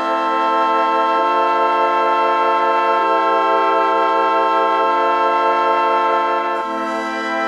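Background music: sustained held chords that change about every two seconds.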